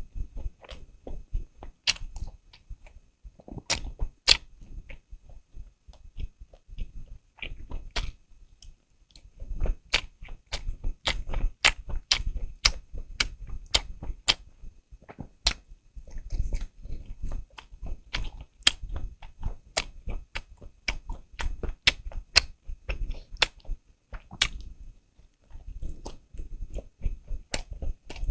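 Close-miked eating sounds: chewing with sharp, wet mouth clicks and smacks coming a few times a second, broken by short pauses.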